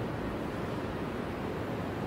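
Steady outdoor street ambience: an even low rumble and hiss with no distinct events.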